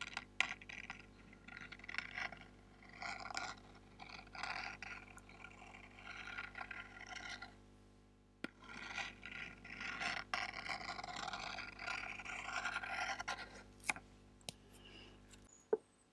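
Fingers scratching and rubbing on a small cardboard box close to the microphone, in irregular runs with a few sharp clicks and a short pause midway.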